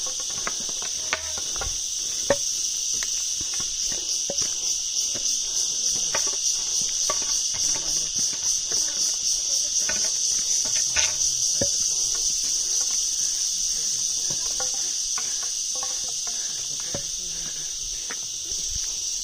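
A loud, shrill chorus of insects droning steadily, pulsing rhythmically through the middle, with scattered footsteps scuffing on stone steps.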